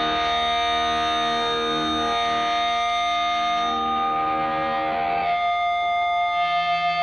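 Distorted electric guitars ringing out long held chords through effects, with no drums. About five seconds in the chord gives way to a single sustained note that begins to waver.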